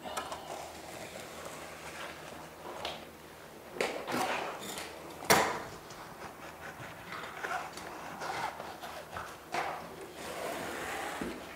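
Steel trowel scraping and rubbing over thinset and Kerdi waterproofing membrane, pressing the band into the mortar at a bench corner to squeeze out air and excess thinset. The strokes are irregular, with a sharp knock about five seconds in.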